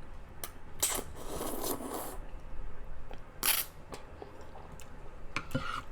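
Close-miked eating: chewing with sharp wet mouth clicks and smacks scattered through, and a short noisy stretch about a second in.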